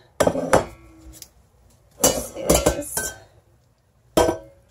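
Utensils clinking and knocking against a stainless steel stockpot during stirring, in three short clattering bursts with quiet gaps between.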